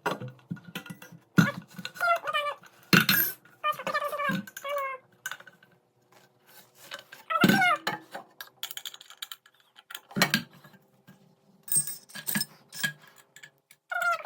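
Metal scooter parts and tools clinking and knocking as a stunt scooter's fork, wheel and handlebars are fitted and tightened, with short bits of a voice in between.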